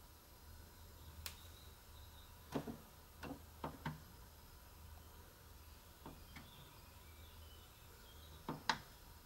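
Scattered soft clicks and taps, the loudest pair near the end as a finger presses the push button on a Linky electricity meter, over a low steady hum.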